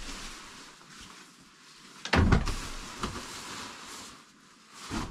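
Heavy camping gear being handled while a canoe is unloaded: a heavy thump about two seconds in, a rush of noise after it that fades, and a smaller thump near the end.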